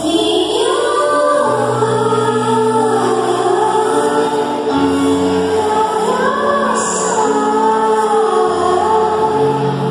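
Choir singing a hymn, with a melody line that moves over low held notes that change every couple of seconds.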